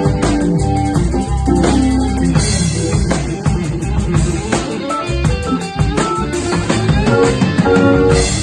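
Rock band jamming: drum kit keeping a steady beat with kick drum and rimshots under electric guitar notes and bass, an improvised groove at a sound check.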